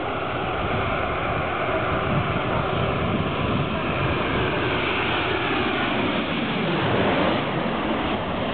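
Boeing 737-800's CFM56 turbofan engines on landing approach, growing louder as the jet comes in with gear down. Their whine slides down in pitch as the aircraft passes overhead near the end.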